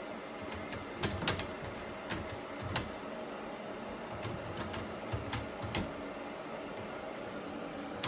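Irregular light clicks and taps, about a dozen scattered over several seconds, over a steady background hum.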